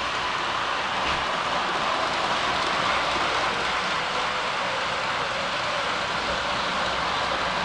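HO scale model subway cars running along the track, a steady whirring rush of their motors and wheels on the rails.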